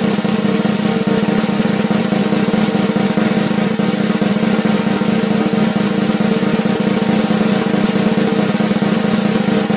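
A continuous, unbroken drum roll, loud and steady, with rapid strokes throughout.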